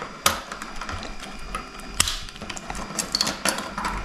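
Plastic Lego pieces clicking and rattling as parts are pressed together and fitted, with two sharper snaps: one just after the start and one about halfway through.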